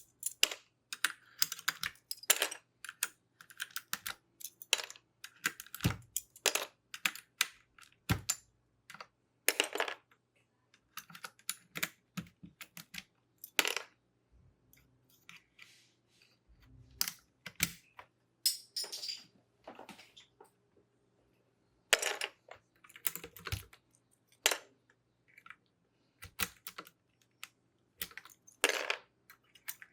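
Plastic keycaps being pulled off a keyboard one by one: irregular sharp clicks and clacks as caps pop off their switches, with a short pause about two-thirds of the way through.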